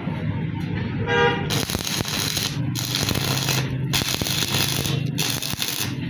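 Arc of an E6013 stick electrode crackling steadily as it welds mild steel, with a low hum under it and a few brief breaks in the crackle. A short pitched tone sounds about a second in.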